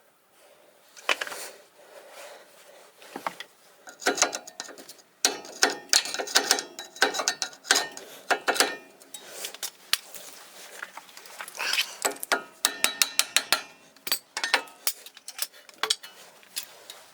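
Hand tools at work on a car's brake assembly: a ratchet wrench clicking in quick runs, mixed with metal clinks and knocks.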